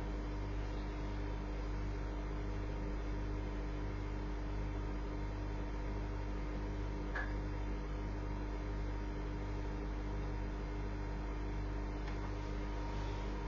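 Electric pop-up toaster humming steadily while it toasts a slice of bread, with one faint click about seven seconds in.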